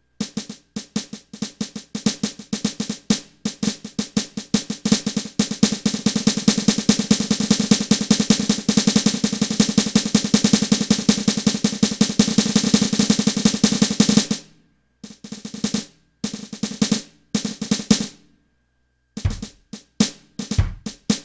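Electronic drum kit played: quick snare strokes build into a dense snare roll lasting about ten seconds. The roll breaks off about fourteen seconds in to scattered hits, a short pause, then deep bass drum kicks with snare near the end.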